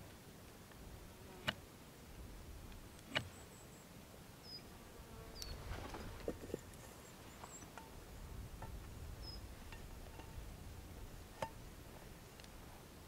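Knife whittling a wooden stick: sharp clicks as the blade bites into the wood, a few seconds apart, with softer scraping and rustling in the middle. A few short high chirps sound in the background.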